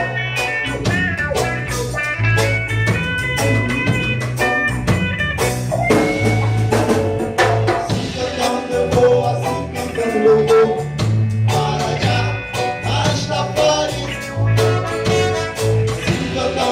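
A live reggae band playing an instrumental passage between sung lines: a repeating bass line under drum kit and guitar.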